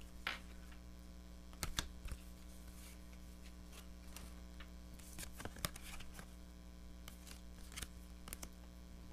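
Tarot cards being handled and laid out: scattered faint clicks and snaps, a few sharper ones about two seconds in and around the middle, over a steady low electrical hum.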